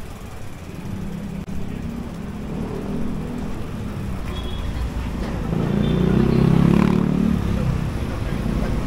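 Street traffic: motor vehicle engines running steadily. One vehicle passes close and grows louder about six seconds in, then eases off.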